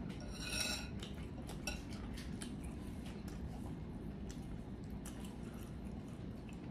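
A short ringing clink from a glass sauce bowl about half a second in, then faint wet clicks and squishes as a giant tiger prawn is dipped in Cajun butter sauce.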